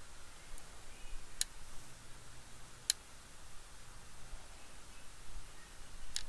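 Three sharp, separate clicks a second or more apart, over a faint steady hiss.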